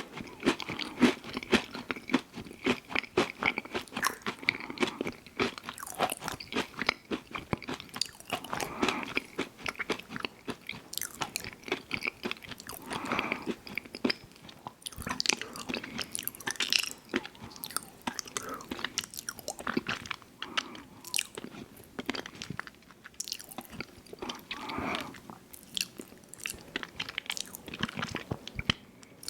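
Close-miked mouth sounds of someone eating ice cream sandwiches: dense crunching and biting at first, then steady chewing with a few softer, wetter stretches.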